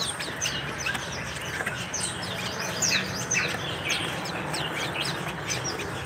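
Caged white-eyes (pleci) chirping: many quick, thin, high notes that slide downward and overlap one another, over a faint steady low hum.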